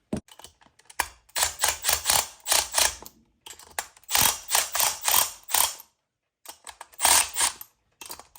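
Hand tools working metal on a small engine, in quick runs of short scraping, ratchet-like strokes, about four or five a second, with short pauses between the runs.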